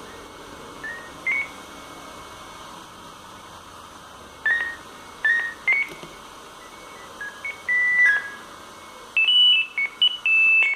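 Sagem MW 3022 mobile phone playing one of its built-in ringtones: a simple tune of short beeping notes, one at a time. It starts sparsely and ends in a quicker phrase of higher notes.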